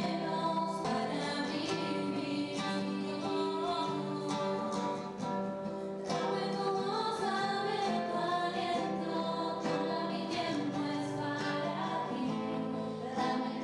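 Several young women singing a song together into microphones, with acoustic guitar accompaniment.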